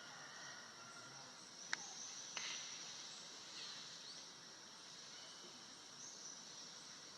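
Outdoor ambience of a steady, high insect drone with a few faint short chirps, broken about two seconds in by two sharp clicks less than a second apart.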